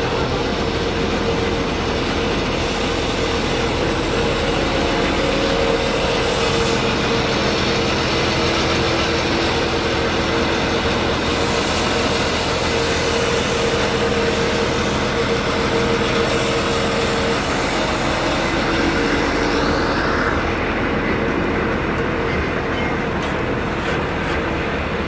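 Truck-mounted water well drilling rig running steadily: a constant engine drone with a steady mid-pitched whine on top.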